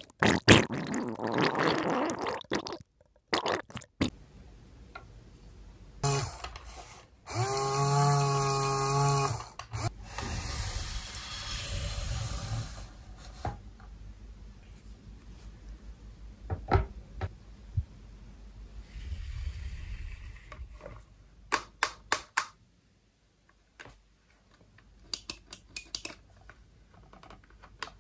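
Small plastic toys being handled and set down, with scattered sharp clicks and taps. About six seconds in, a steady buzzing tone with overtones lasts about three seconds, followed by a few seconds of rushing noise.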